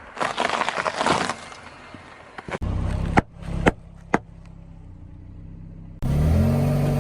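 A car rolling over objects and crushing them: a crackling crunch lasting about a second near the start, then the engine running with three sharp cracks a half second apart as things burst under the tyres. Near the end a louder passage with a low sliding tone comes in.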